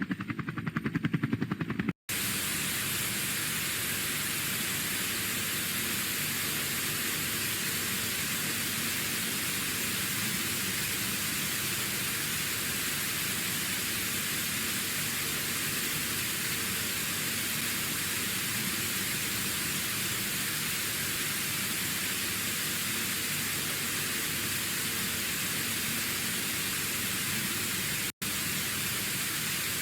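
Steady static hiss like a lost broadcast signal, cutting in abruptly about two seconds in after a short, rapidly pulsing buzz, with a momentary dropout near the end.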